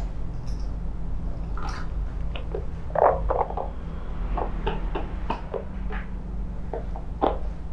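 Short, irregular scratching and rustling of a handheld bristled scalp massage brush being worked through short hair, loudest about three seconds in, over a steady low hum.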